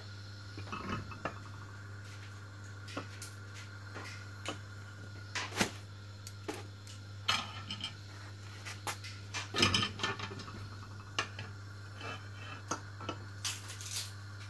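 Kitchen clatter: scattered knocks and clinks of cookware being handled at a gas stove, over a steady low hum.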